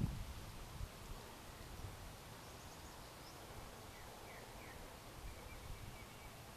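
Quiet outdoor ambience: a few short, faint bird chirps over a low, uneven rumble.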